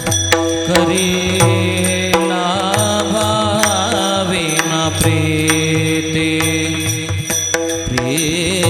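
Marathi Varkari kirtan music: a devotional tune sung over steady held instrumental tones, with regular percussion strokes keeping the beat.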